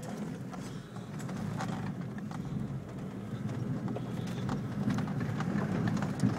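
A vehicle's engine running at low revs, slowly getting louder as it drives over rough off-road ground, with scattered knocks and crunches from the tyres and suspension.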